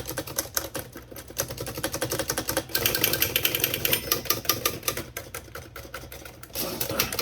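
Smith Premier No. 10 full-keyboard typewriter being typed on at a quick steady pace: a rapid run of type-bar strikes, several clacks a second, from the freshly reassembled machine.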